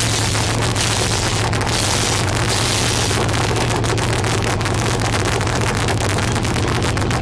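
Trophy truck's engine idling steadily with a constant low hum, heard close up from the truck.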